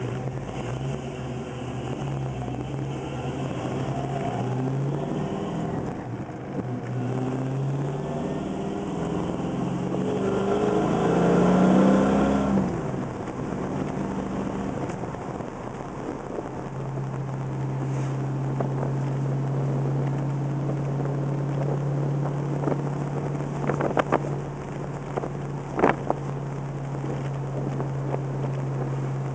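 1969 Plymouth Road Runner's 440 V8 heard from inside the cabin on a drive: the engine pulls up through the revs, loudest about twelve seconds in, drops off sharply as the throttle comes off, then settles to a steady cruise. Two short sharp knocks near the end.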